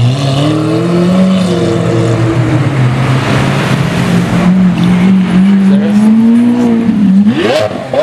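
Lamborghini Aventador SV's V12 accelerating away, its engine note climbing steadily, then a quick sharp rev near the end.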